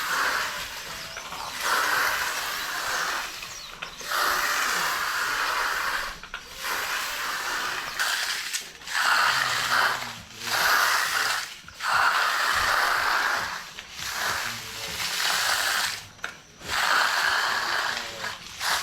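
Repeated scraping strokes of a hand finishing tool drawn across fresh concrete, about one stroke every second and a half, with short pauses between them.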